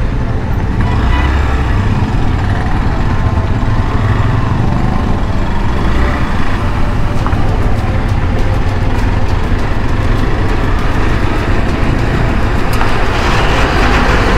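Hero Xpulse 200's single-cylinder engine running as the motorcycle rides at low speed and picks up pace, with steady road and wind noise.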